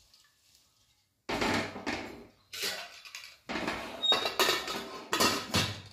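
Stainless steel pressure cooker lid being fitted and closed on the pot: a run of metal clatters and scrapes, with a brief metallic squeak about four seconds in.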